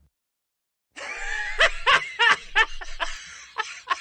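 A person's voice in short, repeated breathy pulses, about three a second, starting about a second in after silence.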